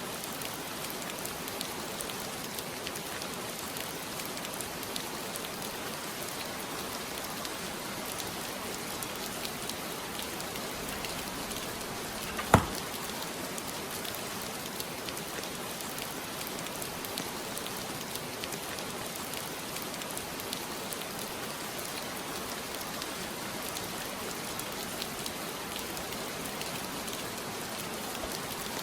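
Heavy rain falling steadily, many drops ticking on a surface. One sharp knock about twelve seconds in.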